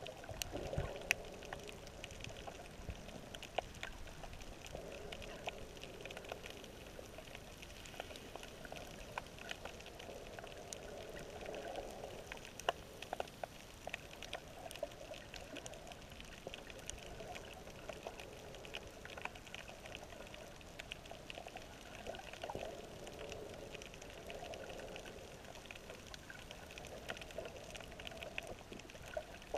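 Underwater ambience picked up by a submerged camera: a steady muffled wash of water that swells and fades, with many faint scattered clicks.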